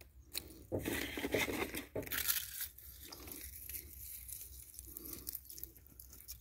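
Eggshells crushed by hand over newly planted chive seedlings, crunching and crackling for about two seconds, then lighter rustling.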